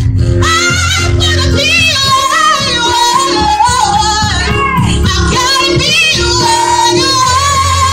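A woman sings a gospel solo through a handheld microphone and PA, with melodic runs and vibrato, over held keyboard chords.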